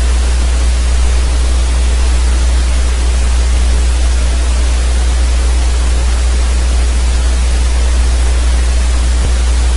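Steady, loud hiss with a low hum underneath, unchanging throughout: the background noise of a computer microphone recording, with no other sound on top.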